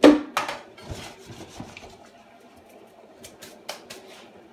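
Large metal spoon clinking as it is put down on a cutting board beside a steel pot: two sharp clinks at the start, then a few faint taps.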